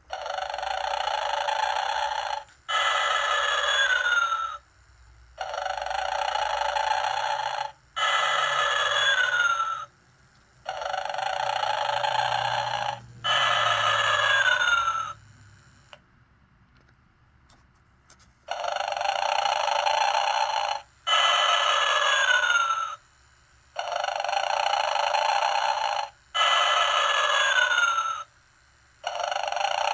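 Vintage Gemmy snoring Santa Claus animatronic playing its snore: a long snore, then a shorter whistle that falls in pitch, repeating about every five seconds, with a pause of a couple of seconds about halfway through.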